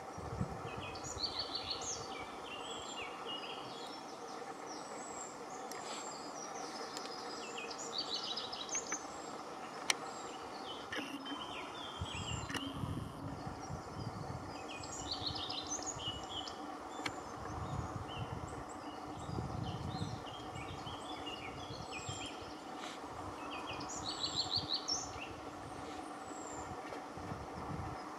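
Male common redstart singing: short song phrases repeated every few seconds, each opening with a high note and falling into a quick run of lower notes. A steady background hum runs underneath.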